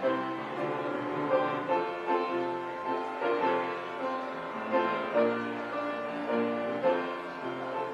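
Piano music, with notes and chords struck one after another.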